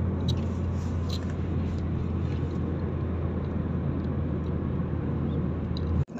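Steady road noise inside a moving car's cabin: a low rumble of engine and tyres. The sound drops out for an instant near the end.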